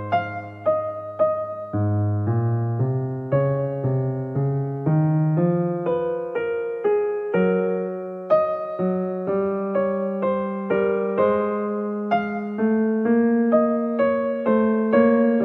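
Soft, slow piano music: single notes struck about twice a second over held bass notes.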